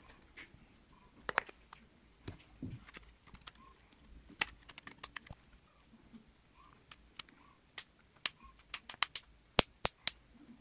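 Scattered sharp plastic clicks and taps from handling a Samsung Galaxy J7 phone while getting it ready to switch on, coming thick and fast near the end.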